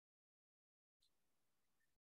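Near silence: dead quiet, then a faint hiss of room tone from about a second in.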